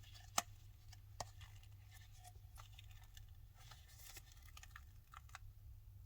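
Faint handling noises of small hard objects: a sharp click about half a second in and a smaller one about a second in, then scattered light ticks and rustles over a low steady hum.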